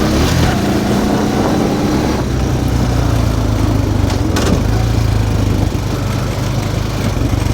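Small off-road vehicle's engine running steadily while being ridden, with a couple of short knocks about two and four seconds in.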